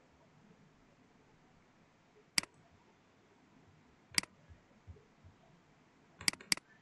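Computer mouse clicking: two single sharp clicks about two seconds apart, then two more in quick succession near the end.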